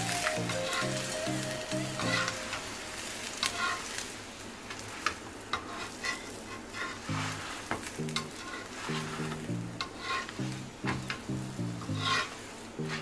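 Paratha cooking on a hot griddle, sizzling steadily with crackling pops, with background music under it.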